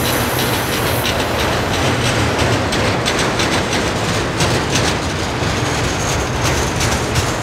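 Freight train's autorack cars rolling past close by: a steady, loud rumble of steel wheels on rail, with a constant run of clicks and knocks.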